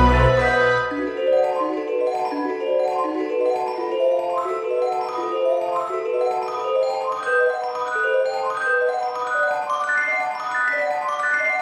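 Background music: a quick run of mallet-percussion notes in a rippling melodic pattern, with a bass and drum hit in the first second.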